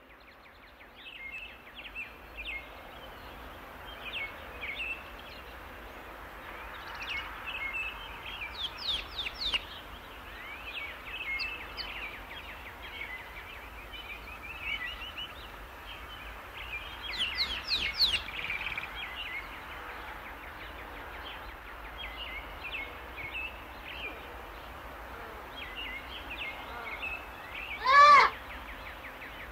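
Natural ambience of many small birds chirping and trilling over a steady background hiss, with one loud call near the end.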